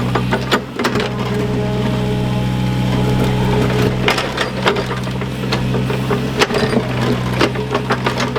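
Excavator engine running steadily while the machine digs, with repeated sharp knocks and cracks of soil, stones and wood being broken and scraped.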